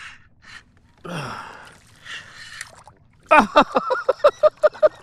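Hard breaths from the angler while he fights a hooked fish. About three seconds in, a fast rhythmic squeaky clatter starts, about six strokes a second, as the spinning reel is cranked to bring in a hardhead catfish.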